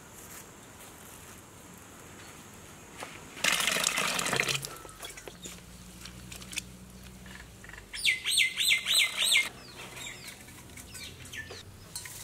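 A bird gives a quick run of about six loud chirps about eight seconds in, with a few fainter calls after. Earlier, about three and a half seconds in, there is a second-long burst of splashing from hands working winged termites in a steel bowl of water.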